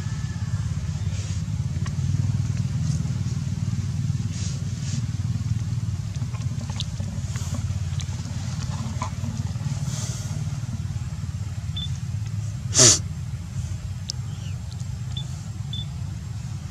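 A steady low rumble runs throughout. About thirteen seconds in, a brief sharp squeak falls fast from very high to low pitch and is the loudest thing heard. A few faint short high chirps come near the end.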